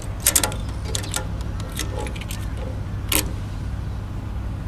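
Steady low engine or machinery rumble, with a few sharp clicks and light metallic jingling, like keys or small metal parts being handled.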